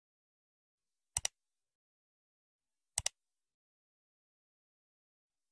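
Mouse-click sound effects of a subscribe-button animation: two quick double clicks, one about a second in and one about three seconds in, with dead silence around them.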